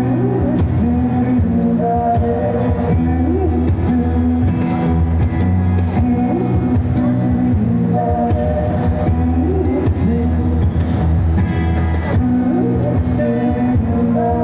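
Live band music: a man singing into a microphone over a strummed acoustic guitar and an electric guitar, with a steady low bass underneath.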